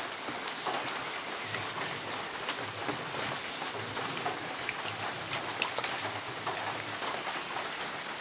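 Steady rain falling, with scattered small wet ticks from hands kneading marinade into chicken pieces in a steel vessel.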